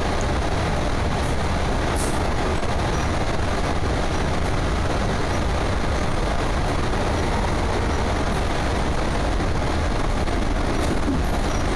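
Steady running noise of an OSCAR electric multiple-unit train heard from inside the carriage: an even rumble of wheels on rail with a faint high tick about two seconds in.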